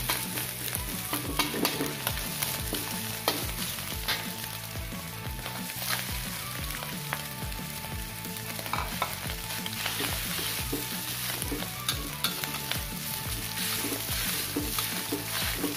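Egg, spice paste and cooked rice frying with a steady sizzle in a steel wok, while a metal spatula stirs and scrapes, knocking against the wok in irregular clicks.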